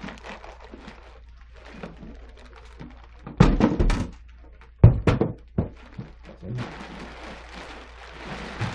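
A large plastic bag crinkling as it is pulled off a 3D printer case, with two loud thunks about three and a half and five seconds in. The rustling grows fuller near the end as the bag is lifted away.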